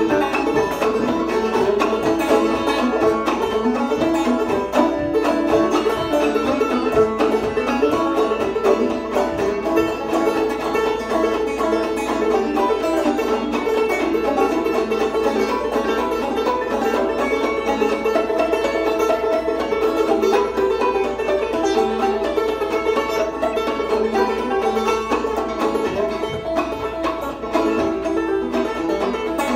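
Two open-back banjos played clawhammer style together, a steady, driving instrumental old-time tune through a PA.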